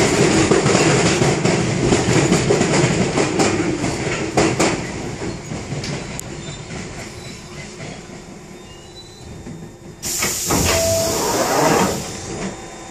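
London Underground District line train heard from inside the carriage, running with wheel clatter and rumble that fades as it slows into the station and stops. About ten seconds in, a loud hiss of air lasts about two seconds as the doors open.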